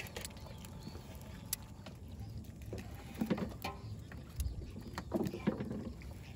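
Live fish being sorted by hand in a small boat: scattered knocks, flaps and small splashes as the fish are dropped into tubs and buckets, with a dull thump against the boat about four seconds in.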